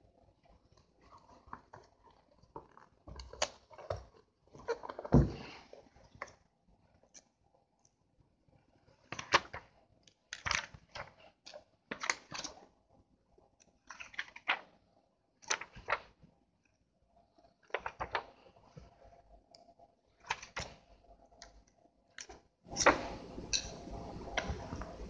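Paper pages of a thick book being turned one after another, each turn a short papery swish, coming every second or two. Near the end the handling gets busier and louder, with continuous rustling.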